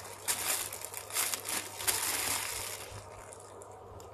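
Crinkling and rustling as squishy toys are handled, in irregular bursts that die down about three seconds in.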